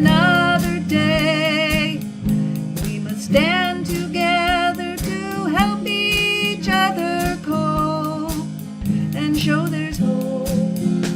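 Song with held, wavering sung notes over strummed acoustic guitar and a steady drum beat.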